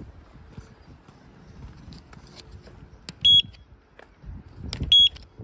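Electronic beeps from a gate's access-control card reader as an access card is held to it: two short, high beeps about a second and a half apart, with faint footsteps and handling around them.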